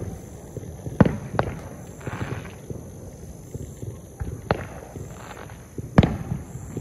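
Fireworks going off: a sharp bang about a second in, another just after, one more near the middle and the loudest about six seconds in, over a low rumbling background.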